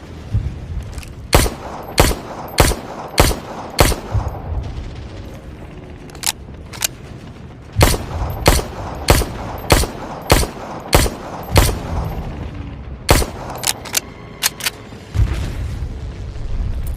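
Mauser C96 pistol firing shot after shot, about one and a half shots a second, in strings of five to seven with short pauses between, each shot ringing out briefly. A low rumble swells near the end.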